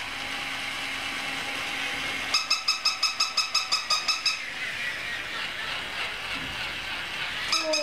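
Electronic baby toy sounding: runs of rapid beeps, about eight a second, with a hissing noise between the runs.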